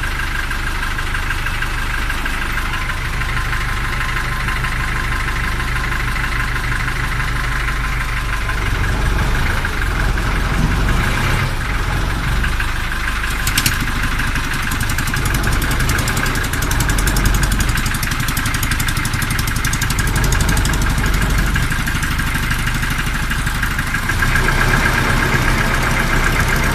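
Ferry boat's engine running steadily, a continuous low drone that grows heavier about nine seconds in, with one sharp click partway through.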